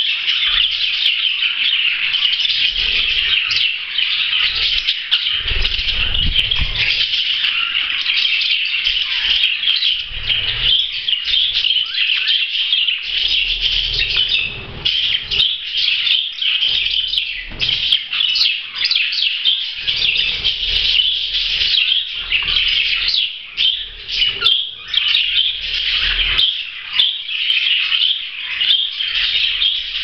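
Budgerigars chattering and warbling without a break, with bursts of wing flapping as a male flutters his wings while mounting a hen to mate.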